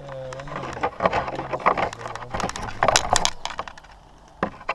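Handling noise from a hand working on the RC car's plastic body right next to the roof-mounted camera: a run of sharp clicks and knocks, loudest about three seconds in.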